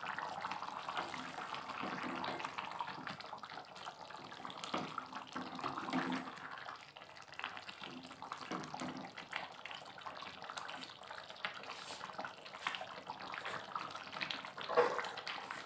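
Chicken curry simmering in a metal pot and being stirred with a wooden spatula: wet bubbling and sloshing with small scrapes and knocks.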